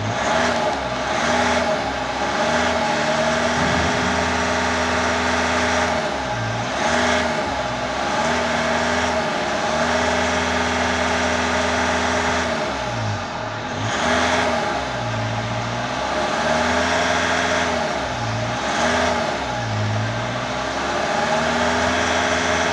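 A 2011 VW Amarok's 2.0-litre twin-turbo four-cylinder diesel, parked and held at raised revs of about two to three thousand rpm, the revs dipping and climbing back again several times. Heard from inside the cab.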